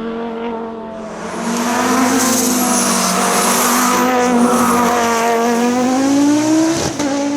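Audi quattro race car's turbocharged five-cylinder engine under hard throttle, growing louder about a second and a half in as the car comes closer. Its pitch climbs slightly, then a sharp crack and drop in pitch come near the end.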